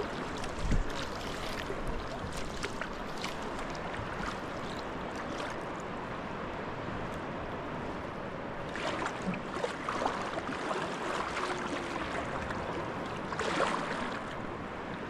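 Calm sea water lapping and trickling around a sea kayak's hull and paddle, with small drips and splashes throughout and two brief louder splashes in the second half.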